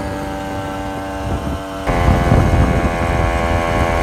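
Moped engine running at a steady speed under way. About two seconds in it gets suddenly louder, with wind buffeting the microphone.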